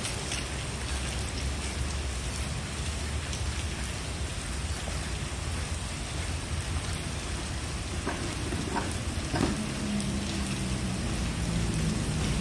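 Steady rain falling on foliage and track ballast. From about nine and a half seconds in, the low, steady hum of a diesel locomotive engine joins it, growing a little louder.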